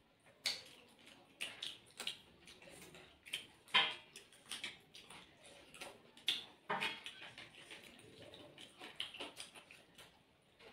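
Eating sounds of two people taking rice and chicken curry by hand: irregular wet mouth clicks and smacks of chewing, with soft squishing of rice mixed by fingers, a few louder smacks about 4 and 7 seconds in.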